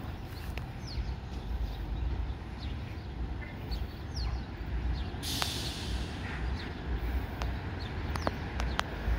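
Steady low vehicle rumble as a Ford SUV ambulance pulls out of a fire station bay, with birds chirping throughout and a short hiss about five seconds in.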